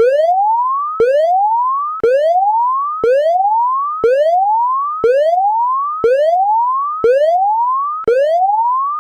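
Electronic whoop alarm tone: a clean tone rising in pitch over about a second, then snapping back down with a click and starting again, about once a second.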